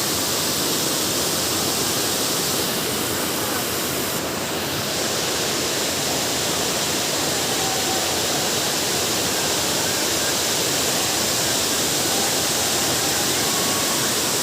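Steady rush of fast-flowing water: a stream running over rocks toward the drop of a waterfall, an even noise that holds at the same level throughout.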